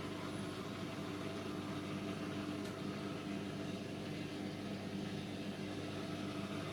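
Electrolux PerfectCare 800 tumble dryer running, giving a steady motor-and-fan hum with an even hiss.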